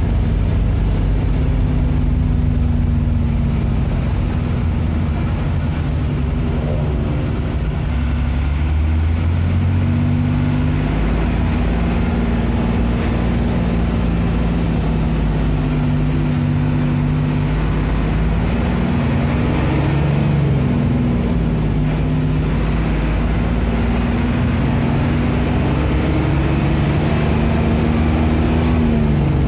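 City bus engine running while the bus drives, heard from inside the bus, with a steady low rumble and an engine note that rises and falls several times as the bus speeds up and eases off.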